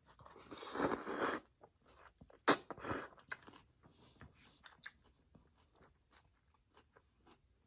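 A person slurping up a mouthful of lo mein noodles for about a second, then chewing them with wet mouth clicks that thin out and fade.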